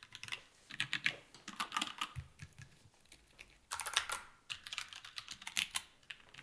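Custom mechanical keyboard being typed on: quick bursts of key clacks with short pauses between them.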